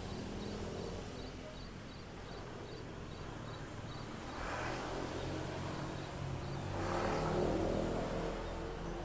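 A small songbird's thin, high chirps repeated about three times a second, stopping about four seconds in, over a steady low hum of traffic; vehicles pass twice, the louder one near the end.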